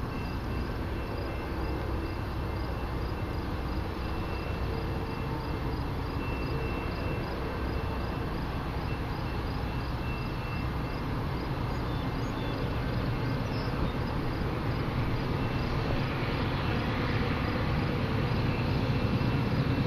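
Crickets chirping in a steady, regular rhythm. A low rumble from an approaching freight train builds and grows louder over the last several seconds, before the train comes into view.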